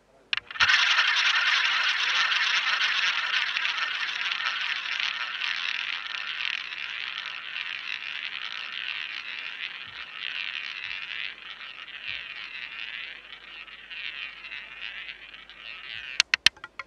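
Roulette ball spinning around the ball track of a wooden roulette wheel: a steady whirring roll that starts with a click about half a second in and slowly fades as the ball loses speed. Near the end comes a quick run of sharp clicks as the slowing ball starts to clatter.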